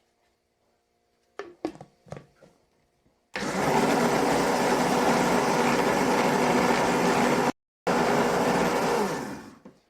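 A few light knocks, then a countertop blender motor running at speed, mixing egg, oil, milk and salt into a batter. It breaks off for a moment and starts again, then winds down near the end.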